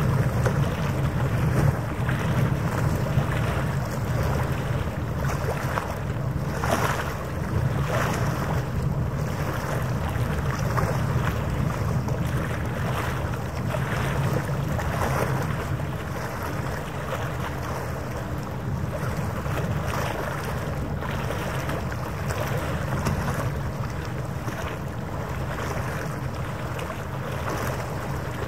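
Steady low drone of a boat engine on the harbour, mixed with water noise and wind buffeting the microphone in brief swells every few seconds.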